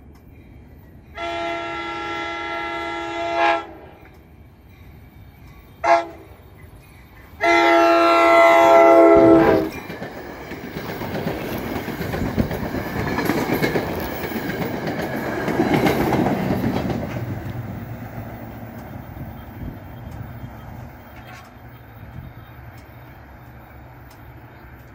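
NJ Transit commuter train's multi-note horn sounding for a level crossing: a long blast, a short blast and a final long blast, the close of the long-long-short-long crossing signal. The train then passes, its wheels clacking and rumbling over the rails, building and then fading away.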